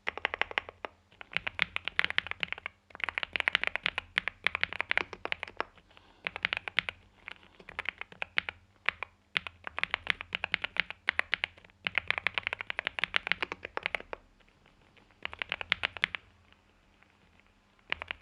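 Typing on a NuPhy Gem80 mechanical keyboard with NuPhy Mint linear switches, an FR4 plate in a silicone-sock gasket mount and mSA double-shot PBT keycaps. Quick runs of key presses come in bursts, with a couple of short pauses in the second half.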